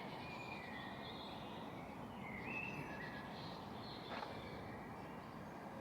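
Faint birds calling, a few short chirps, over steady outdoor background hiss. A single soft tap sounds about four seconds in.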